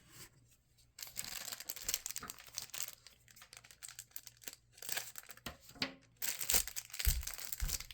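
Plastic wrapper of a 1989 Topps rack pack crinkling and tearing as one of its sealed sections is opened by hand. There are a few soft low knocks near the end.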